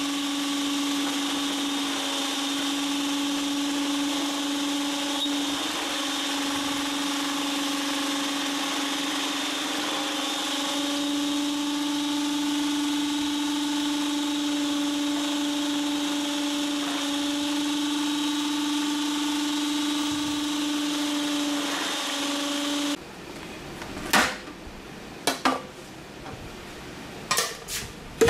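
A GB National ST 830 food processor's motor runs steadily with its slicing disc as carrots are pushed down the feed tube. The hum dips slightly in pitch partway through under the load. The motor is switched off and stops abruptly about 23 seconds in, and a few sharp clicks and knocks follow.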